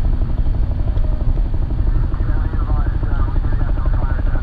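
Antares rocket's RD-181 first-stage engines rumbling with a rapid crackle, a loud, steady low roar. A faint voice-like sound rises in the upper range about halfway through.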